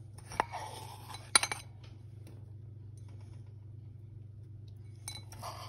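A spoon scraping and clinking against a china bowl of runny icing, with sharp clinks about half a second and a second and a half in and more scraping near the end.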